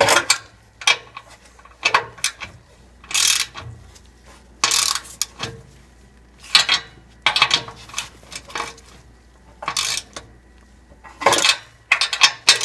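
Wrench and nuts clicking and clinking on the oxygen-sensor flange studs of an exhaust pipe as the nuts are snugged down alternately, side to side, to seat the new gasket evenly. Short metallic bursts come every second or two.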